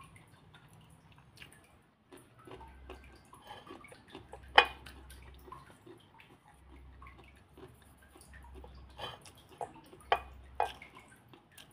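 Close-up eating sounds: wet chewing and lip smacks as a person eats rice and petai by hand, with scattered clicks and one sharp, louder click about four and a half seconds in.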